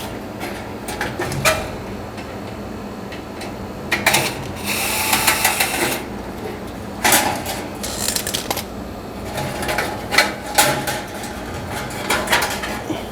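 Small power drill-driver whirring in short runs as it backs a screw out of a dryer's sheet-metal cabinet, with clicks and clatter of parts being handled. The longest run comes about four seconds in.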